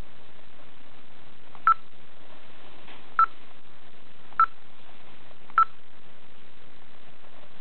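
A 3.5-inch GPS navigator's touchscreen sounds four short, single-pitch confirmation beeps, one for each stylus tap on a menu button, spaced about a second and a half apart over a steady hiss.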